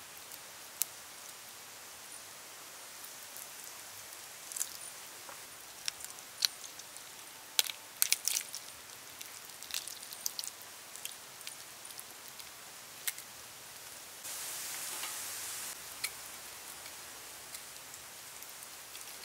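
Hands deboning boiled chicken feet by hand: sparse small clicks and snaps, with a cluster of them about eight seconds in, over a faint steady hiss. A brief, louder steady hiss lasts about a second and a half near the end.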